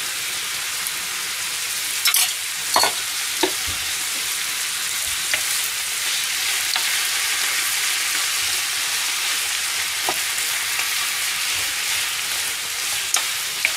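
Chopped vegetables and minced meat sizzling in oil in a frying pan as they are stirred with a wooden spatula. A few sharp knocks of the spatula against the pan come about two to three seconds in and again near the end.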